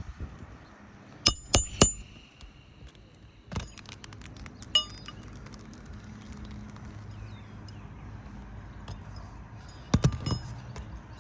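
Sharp metal clinks of roofing hand tools, each with a brief ringing tone: three quick strikes about a second in, another two a few seconds later, and a cluster near the end.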